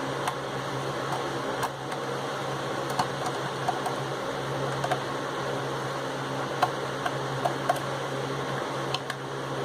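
Scattered light clicks and taps of a small screwdriver and hands working the plastic case of a Bluetooth speaker, taking out the case screws. A steady room hum runs underneath.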